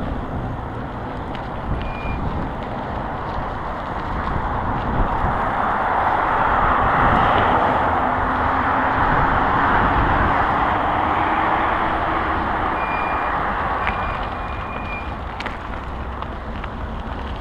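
Road traffic: a vehicle goes past, its rumble swelling for several seconds in the middle and then fading, over a steady background rumble.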